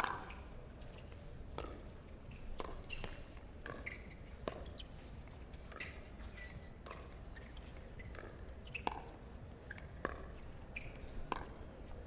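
Pickleball rally: paddles striking a hard plastic ball, a sharp pock at irregular intervals, roughly one a second.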